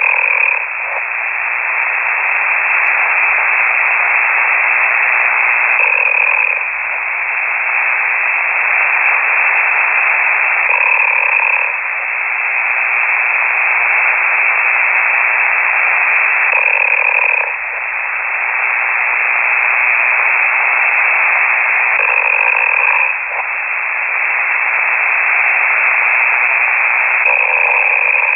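A radio amateur snoring on the air, heard through a KiwiSDR shortwave receiver: loud, narrow-band radio hiss with a snore coming through about every five and a half seconds.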